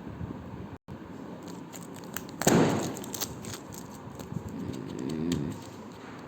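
Parcel packaging handled and pulled at by hand: rustling and crinkling with small clicks, and a loud crinkle about two and a half seconds in.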